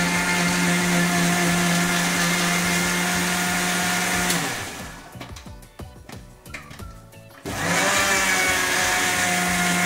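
Electric mixer grinder running steadily, wet-grinding a roasted gram dal and coconut chutney. It cuts off about four and a half seconds in, a few light clicks and knocks follow, and about seven and a half seconds in it starts again, rising in pitch as it spins up.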